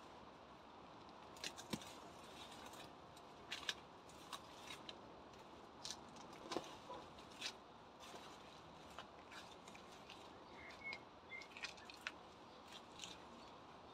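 Weeds being pulled up and bundled by gloved hands: leaves rustling and stems snapping, heard as irregular sharp crackles and snaps over a faint background.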